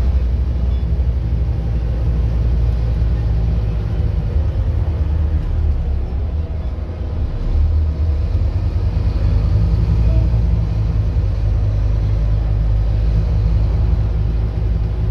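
Scania N230UD double-decker bus on the move, heard from the upper deck: a steady low rumble from its five-cylinder diesel engine and running gear.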